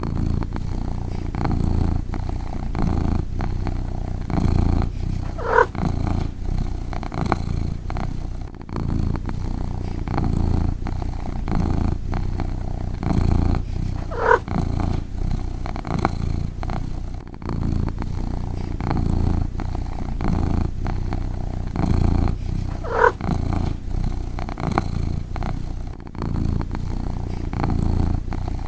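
Cat snoring: a continuous low, rhythmic rumble of breaths, with a short high squeak about every nine seconds.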